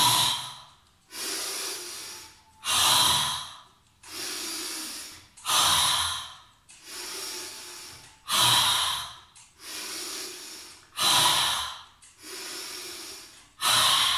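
A woman breathing deeply in a slow, even rhythm: about six cycles, each a short, forceful, loud out-breath followed by a softer, longer in-breath, roughly one cycle every three seconds.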